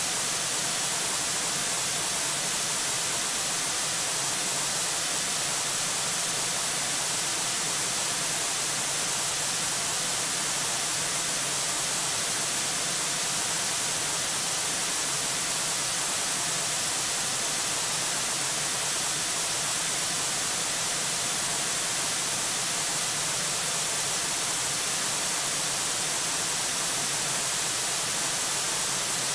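Steady, even hiss of static, brightest in the high range, with nothing rising above it.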